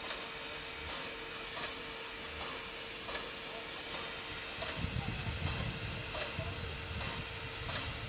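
Steam locomotive hissing steadily as steam escapes, with faint regular beats about every three-quarters of a second; a low rumble comes in about five seconds in.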